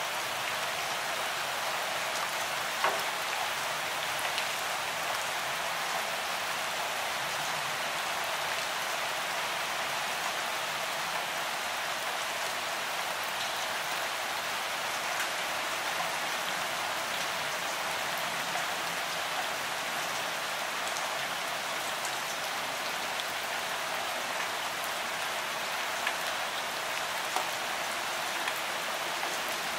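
Steady rain falling, an even hiss with scattered small ticks of single drops, one a little louder about three seconds in.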